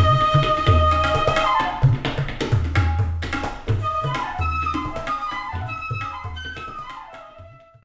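Instrumental background music: a melody over a repeating low drum beat, fading out toward the end.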